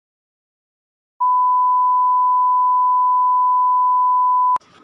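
Steady test-card beep tone, the single pure tone that goes with TV colour bars. It starts about a second in and cuts off sharply with a click near the end.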